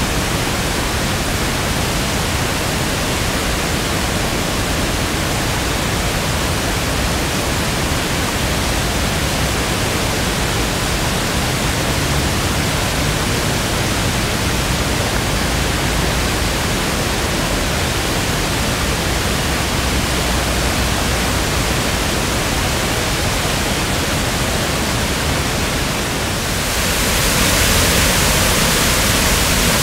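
Chagrin River in flood after heavy rainfall, its muddy water rushing over rapids and falls in a steady, dense rush. About 26 seconds in it becomes louder and hissier as the waterfall itself comes close.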